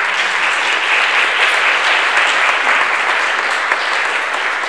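Audience applauding, a dense steady clapping that eases off slightly near the end.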